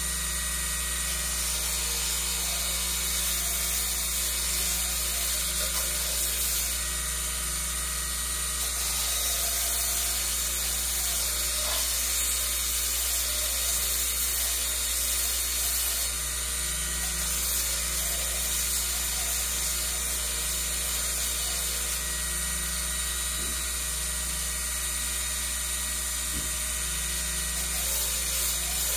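Electric motor of a bench belt sander running steadily, a continuous machine whine with constant loudness throughout.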